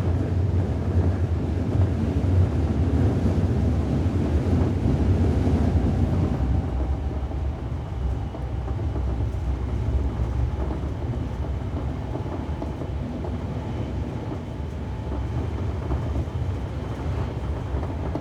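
Running noise heard inside a 7000 series electric commuter train car: a steady low rumble of the train under way, a little louder in the first six seconds.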